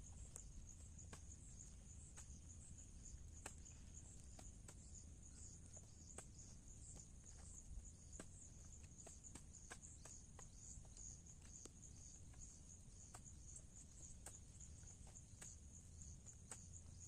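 Faint, distant hoe strokes into wet field soil, a soft knock about once a second at uneven spacing, over a steady high insect chirring.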